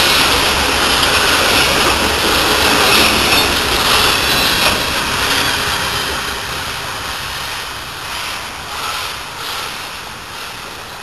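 Coal hopper cars of a long freight train rolling past, a steady rumble and rattle of steel wheels on rail. From about six seconds in the sound fades as the last cars go by and the train draws away, with a few faint wheel clacks near the end.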